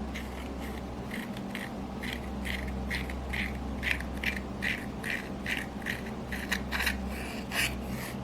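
Slime being kneaded and pressed with makeup mixed in, giving a steady run of short squishy pops and clicks, about two or three a second, louder towards the end.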